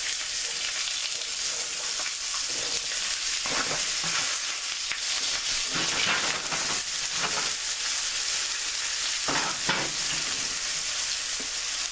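Onions sizzling in hot oil in a frying pan, a steady hiss that swells briefly a few times.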